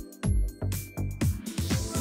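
Electronic dance music with a steady kick-drum beat, about two beats a second, under sustained synth notes.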